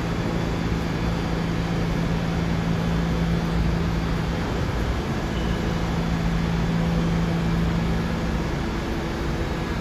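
Steady rumble of a New York City subway train in the station, with a low hum that drops out briefly about halfway through and then returns.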